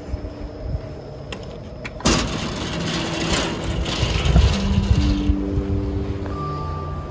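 Low steady rumble, then about two seconds in a sudden loud burst of rattling noise lasting about three seconds as a wooden sliding door is opened and passed through. Steady sustained music notes at changing pitches come in partway through.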